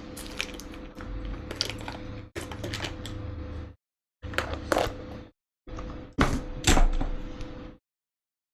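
Sharp clicks and taps of handling and opening a cardboard figure box and its packaging, a handful of separate strikes with short pauses between them.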